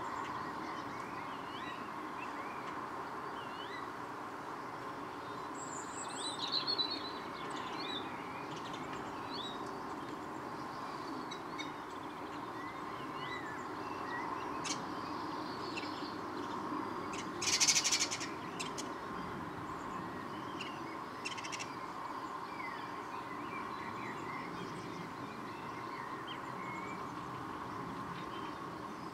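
Wild garden birds calling and chirping faintly over a steady background hum, with a brief loud rushing noise about seventeen seconds in.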